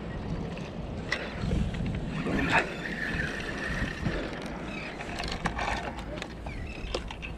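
Wind rumbling steadily on the microphone over the sea, with faint distant voices and a few sharp clicks.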